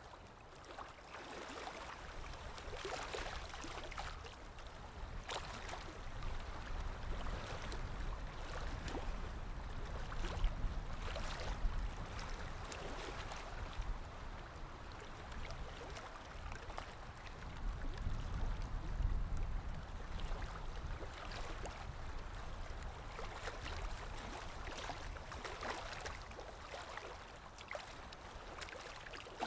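Water flowing and splashing, as in a forest stream, a continuous rush broken by many small splashes. A low rumble swells twice, about a third and about two-thirds of the way through.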